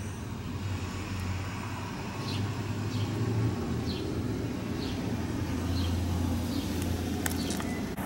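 Steady low rumble of road traffic, with a faint short bird chirp about once a second and a couple of clicks near the end.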